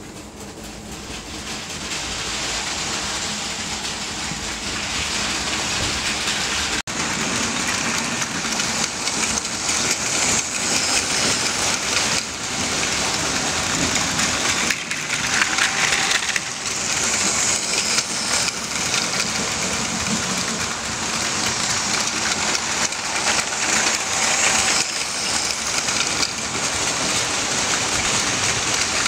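Battery-powered Plarail Advance toy Shinkansen trains running on plastic track close by: a dense, steady rattling whir of small motors and plastic wheels, with a brief break about seven seconds in.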